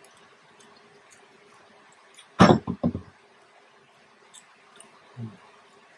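Quiet eating sounds of spaghetti with meat sauce: forks clicking on the plate and soft wet chewing and mouth sounds, over a faint steady hum from an air unit. A short, louder low burst of sound comes about halfway through.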